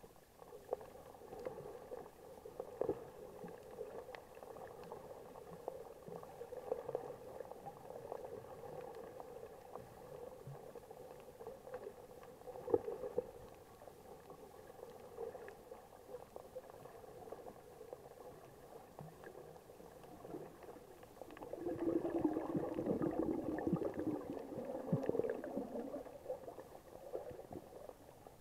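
Muffled underwater water noise heard through an action camera's waterproof housing: faint bubbling and gurgling with scattered small clicks. It swells into louder bubbling for a few seconds about three quarters of the way in.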